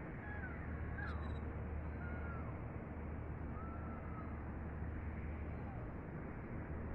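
Gulls giving short mewing calls that slide downward, about five spaced irregularly, over a steady low rumble of wind.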